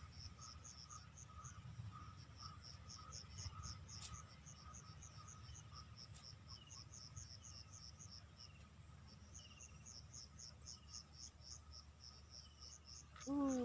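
Insects chirping in quick, evenly repeated high pulses that come in groups, over a faint steady whine.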